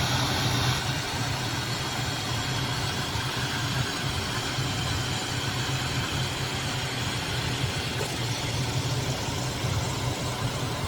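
Matco compressed-air suction gun running steadily, a continuous hiss of air as it draws water up from the floor into a bucket, over a steady low hum.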